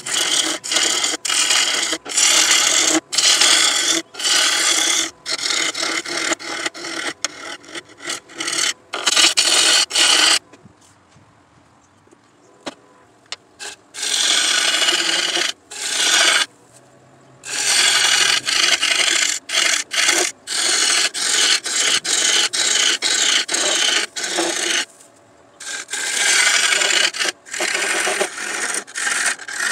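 A turning tool cutting the face of a dogwood bowl as it spins on a wood lathe: a scraping cutting noise in many short passes broken by brief gaps, with a longer pause about ten seconds in.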